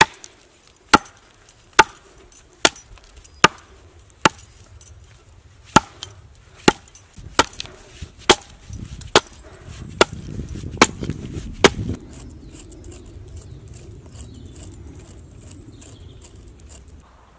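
Hatchet chopping into the top of a log, cutting a row of notches: about fifteen sharp blows, a little under one a second, stopping about twelve seconds in. A low steady noise runs under the last blows and on after them.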